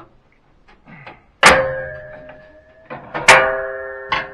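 Two sharp metallic clanks about two seconds apart, each leaving a ringing tone that dies away slowly, with a few lighter knocks between: a steel alignment bar and the idler tension spring striking the steel mower deck as the spring is worked onto its hook hole.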